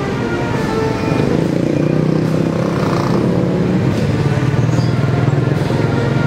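A motor vehicle's engine running slowly and steadily, its low hum growing stronger about a second and a half in, amid street noise.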